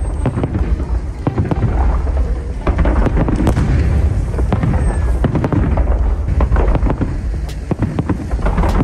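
Fireworks display: many bangs in quick, irregular succession over a continuous low rumble.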